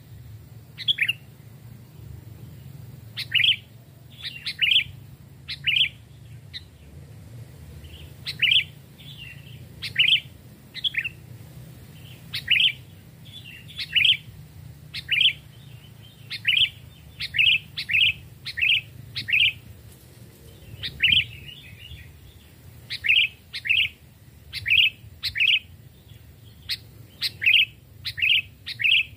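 Sooty-headed bulbul (kutilang) singing as a decoy bird, repeating short clear whistled phrases of two or three quick notes every second or two.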